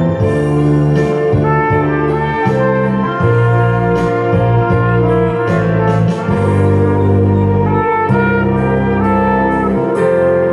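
Trumpet playing a slow melody in long held notes, moving to a new note about every second. It plays over a recorded accompaniment with a bass line and a light, even beat.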